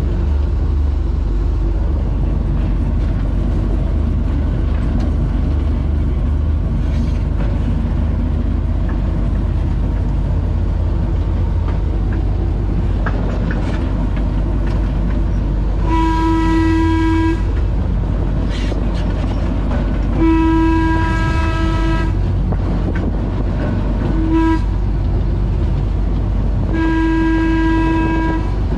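1949 General Electric diesel-electric locomotive, its Cummins six-cylinder diesel running steadily. A little past halfway the horn sounds four blasts, long, long, short and long: the standard signal for approaching a road grade crossing.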